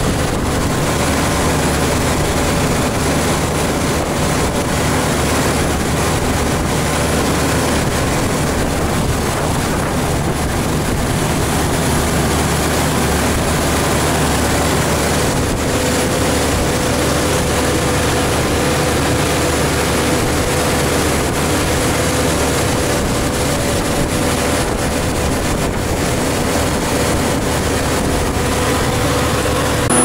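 Massey Ferguson 86-series tractor engine running steadily under load while pulling a plough through the soil, a constant drone with a steady whine held throughout.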